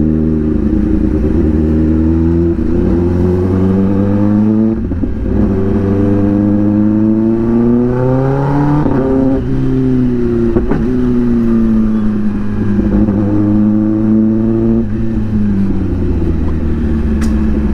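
2021 Kawasaki ZX-10R's inline-four engine through an SC-Project aftermarket exhaust, loud, pulling through the gears in traffic. Its note climbs under acceleration to a peak about nine seconds in, then falls away as the throttle closes, with a smaller rise and fall later on.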